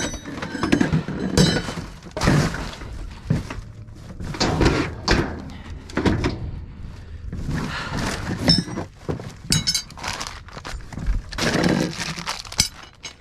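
Irregular thuds and clanks of garage door sections and their metal hardware being shifted and dropped inside a metal dumpster, several knocks with a short metallic ring.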